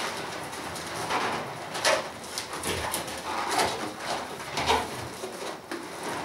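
Latex balloons rubbing against each other in irregular strokes as one balloon is tied onto a cluster of others.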